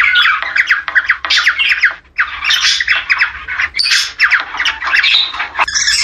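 Cockatiels calling in a fast, dense run of harsh squawks and chirps, with a brief break about two seconds in: the mating chatter of a breeding pair.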